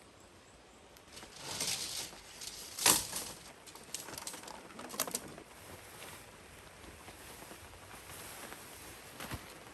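Rustling with a series of sharp clicks and knocks, the loudest click about three seconds in, over a faint steady hiss: things being handled by hand.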